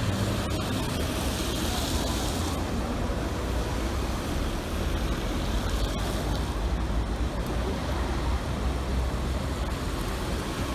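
Road traffic on a rain-soaked street: cars driving past with their tyres hissing on the wet asphalt over a steady low rumble.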